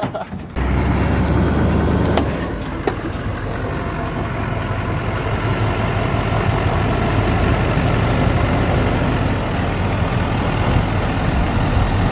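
Diesel engine of a GMC Sierra Denali 3500 dually pickup running steadily at low speed as the truck tows an enclosed gooseneck trailer. It comes in abruptly about half a second in.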